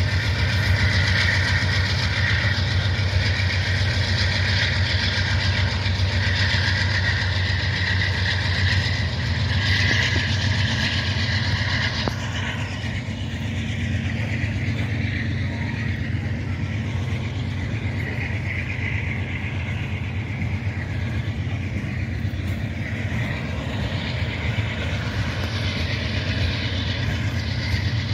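Freight train cars rolling past on the rails in a steady rumble of wheels and steel, with a high whine over it that fades out about twelve seconds in.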